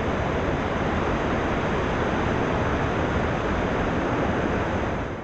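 Steady, loud rushing noise with no tone or rhythm in it, cutting off about five seconds in.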